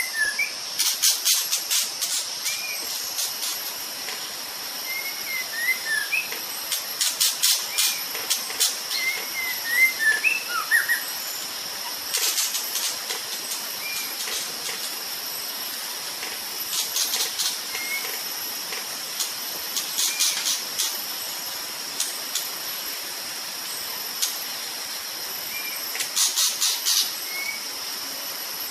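Short whistled notes of a Sumatran white-rumped shama, some sliding up or down, given in scattered phrases over a steady high insect drone, with spells of fast clicking coming and going every few seconds.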